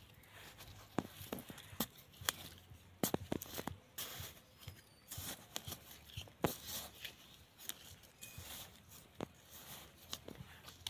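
A small metal hand tool scraping and stabbing into loose soil, with irregular crunches and clicks as earth is loosened and scooped out of a small planting hole.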